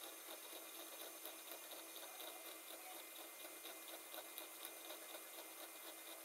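CNC router spindle running while its end mill slowly cuts a profile through laminated particleboard: a faint, steady whir with an even hiss over a low steady hum.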